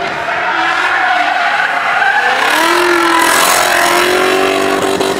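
Drift car engine revving hard while its tyres squeal and skid through a slide. The engine pitch rises about two seconds in and then holds high, and the tyre noise grows louder in the second half.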